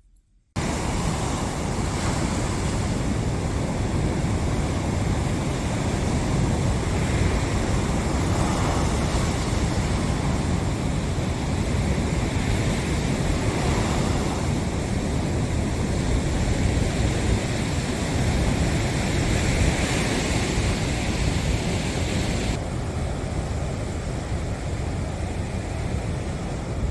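Sea waves breaking and washing on a beach, a continuous rush that swells every several seconds, with a heavy low rumble of wind on the microphone. It starts abruptly about half a second in.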